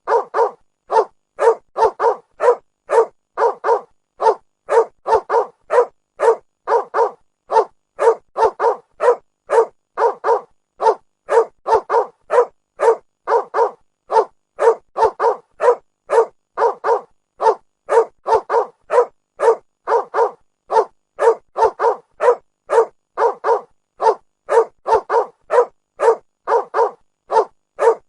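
A dog barking steadily and rapidly, about three short barks a second with no let-up.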